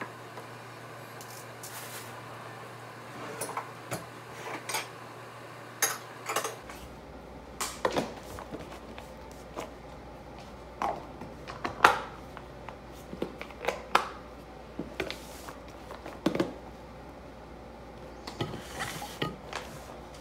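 Scattered clinks, taps and knocks of dishes, containers and utensils handled on a kitchen counter while school lunches are packed, the loudest knock a little past halfway.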